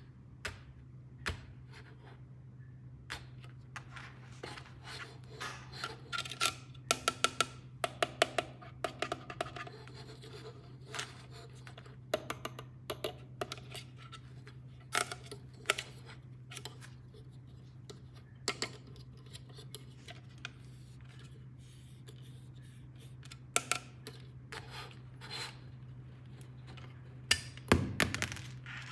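Plastic toy packaging and toy pieces handled and unboxed: irregular clicks, taps and scratches, with a busy run of quick clicks about seven to nine seconds in and a louder cluster near the end.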